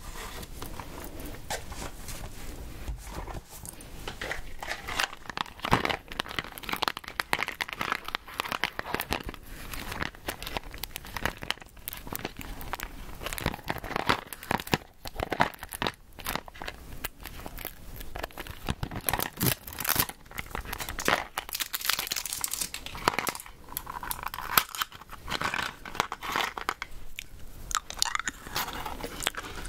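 Chewing gum close to the microphone: a continuous, irregular run of sticky, wet clicks and crackles.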